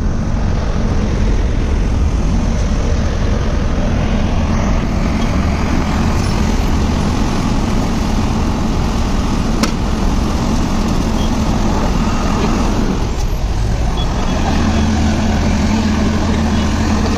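A heavy vehicle's engine running steadily amid road traffic noise. There is a single sharp click about ten seconds in, and the engine drone dips briefly a few seconds later.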